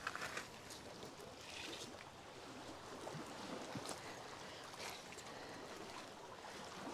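Faint footsteps scuffing and crunching over shoreline stones and pebbles: a quick cluster of clicks at the start, a short scrape about a second and a half in, and a few scattered ticks, over a low steady hiss.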